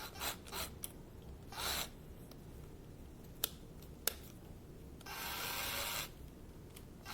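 Hands working the plastic keyless chuck of a small cordless drill: short rasping turns of the sleeve and two sharp clicks, then about a second of steady whirring near the end.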